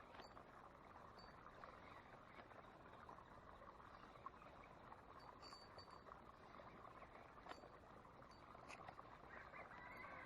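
Faint outdoor pond-side ambience: a steady low hiss with a few short high chirps and light clicks.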